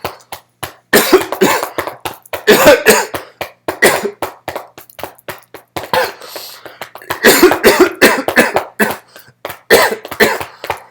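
A person coughing in a long fit: loud, harsh coughs in quick succession, some voiced, with throat clearing among them.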